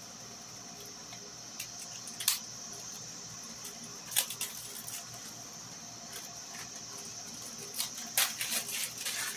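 Handling noise from bike parts being picked up and sorted: a few separate sharp clicks and knocks, then a quick cluster of them near the end, over a steady high hiss.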